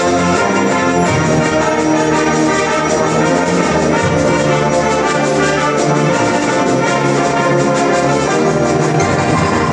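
School concert band playing a loud, fast passage led by the brass, trombones and trumpets to the fore over the full ensemble.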